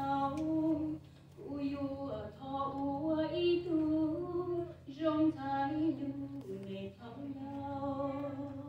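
A woman singing a slow Hmong song solo, in sung phrases with long held notes broken by short pauses for breath.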